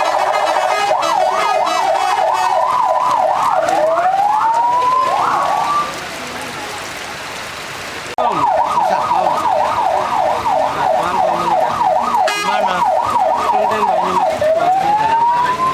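Electronic siren cycling through its patterns: a fast warbling yelp mixed with rising wail sweeps, a pause of about two seconds in the middle, then a fast yelp again that turns into a long rising wail near the end.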